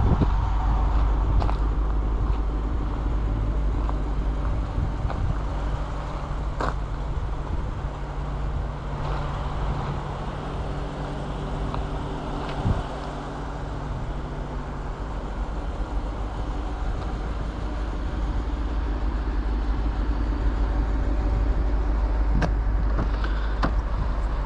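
Lexus LC500's naturally aspirated 5.0-litre V8 running steadily as the car drives, with road noise and no hard revving.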